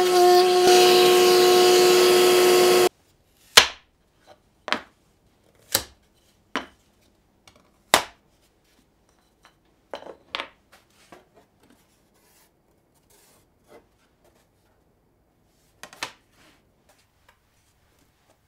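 A table-mounted router running with a steady high whine, cutting off abruptly about three seconds in. After it, a string of sharp wooden knocks and clacks as MDF and plywood pieces are picked up and set down on the router table, the last cluster about sixteen seconds in.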